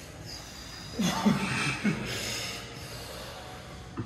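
A man's short gasps and groans from the cold shock of sinking into a cold plunge pool, three quick voice sounds falling in pitch about a second in, then a second of heavy, breathy exhaling.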